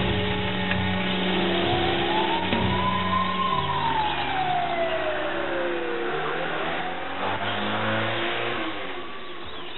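Ambulance siren wailing, one slow rise and fall in pitch then rising again, over a vehicle engine accelerating.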